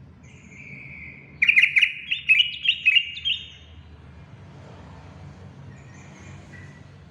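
Yellow-vented bulbul (trucukan) singing the sharp, hard-driving song keepers call 'pedes': a thin held note, then, about a second and a half in, a loud burst of quick bubbling notes lasting about two seconds. Faint calls follow near the end.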